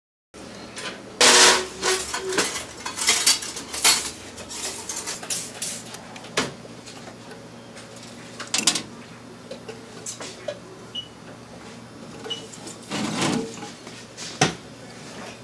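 A metal surgical instrument clinking and scraping against a glass jar and its metal lid while stainless steel suture wire is handled and drawn out. The clinks and rattles are irregular, loudest a little over a second in and again near the end.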